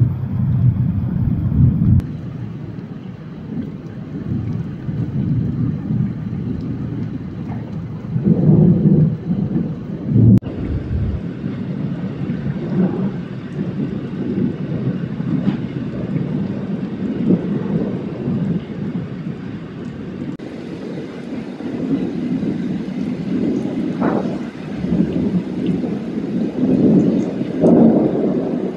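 Heavy rain pouring down steadily, with thunder rumbling underneath in swells, loudest about eight to ten seconds in and again near the end.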